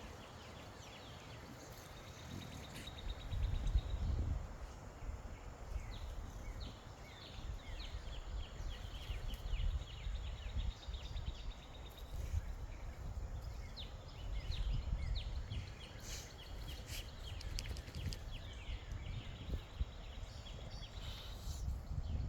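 Wind buffeting the microphone in gusts with a low rumble, over many small birds chirping and singing.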